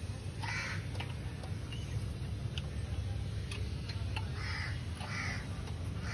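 Crows cawing several times, one call about half a second in and a run of calls near the end, over a steady low hum.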